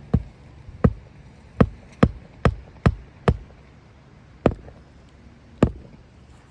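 Roofing nails being hammered by hand into a shingle: nine sharp strikes at an uneven pace, with a quick run of blows in the middle.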